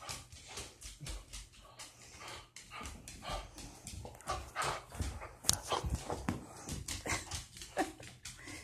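A doodle dog playing with his ball on a hardwood floor: many irregular clicks and scuffs, with a few short, falling vocal sounds from the dog.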